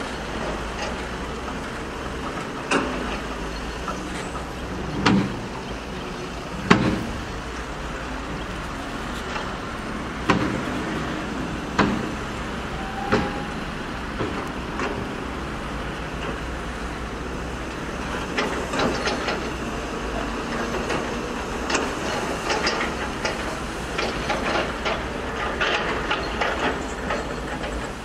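Heavy diesel dump trucks running steadily. A few loud, separate metal clanks fall in the first half, and a busier rattling clatter comes in the last third as a truck tips dirt out of its raised bed.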